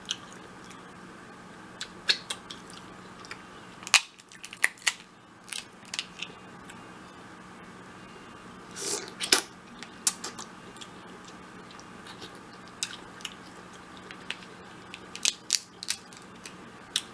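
Close-up eating of a seafood boil: irregular short, sharp clicks and cracks of crab and shrimp shells being handled and broken open, with chewing. A denser cluster of cracks comes around halfway through.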